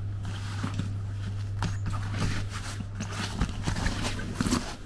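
A cycling bag being handled as its shoulder strap is hooked on: scattered rustles and small clicks from the strap hooks, over a steady low hum.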